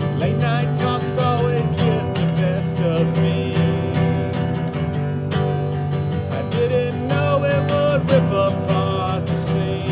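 Acoustic guitar strummed steadily in a song, with a voice singing long, wavering held notes over it in two phrases, one near the start and one in the second half.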